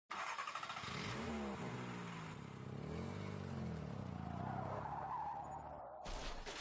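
A car engine revving up and down in pitch, with a tyre-squeal hiss over it; it cuts off sharply near the end.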